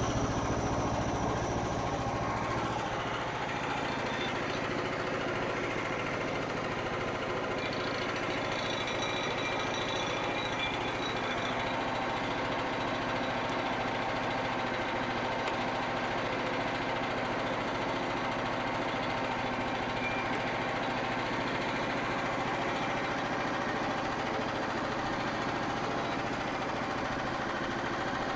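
Frontier OS27 portable bandsaw mill running steadily under load as its band blade cuts slowly through a knotty white pine log; the blade is not super sharp. The deepest part of the engine's tone drops away about three seconds in.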